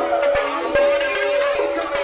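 Phonk hip-hop beat from a mixtape: a busy plucked-string melody over a steady held tone, with light ticking percussion and no heavy bass drum.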